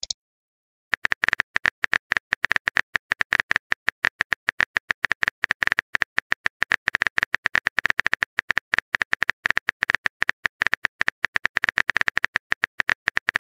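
Phone keyboard typing sound effect: rapid, even clicks, about six or seven a second, as a text message is typed out letter by letter. The clicks start about a second in.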